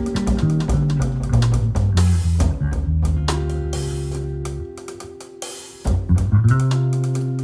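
Live jazz-rock trio playing: drum kit with snare, bass drum and cymbals over electric bass and guitar. About five seconds in, the drums and bass drop out for about a second, then the full band comes back in.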